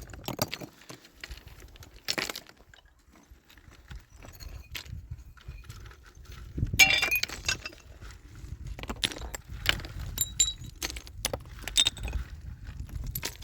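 Irregular clinks, taps and knocks of hard objects being handled, with a louder clatter about seven seconds in.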